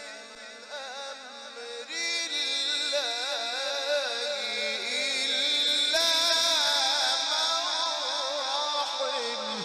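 A man's voice reciting the Quran in the melodic mujawwad style, drawing out one long ornamented phrase that wavers and turns in pitch. It steps up higher about two seconds in and is at its loudest around the middle.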